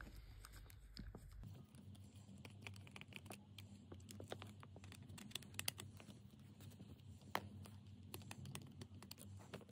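Faint, scattered clicks and ticks of a precision screwdriver turning out the small screws in the plastic underside of a DJI Spark drone, with light handling of the plastic body.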